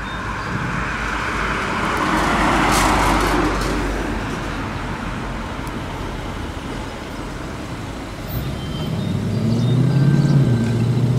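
Car engines and traffic: a car's noise swells and fades about two to four seconds in, then a low engine rumble grows louder near the end.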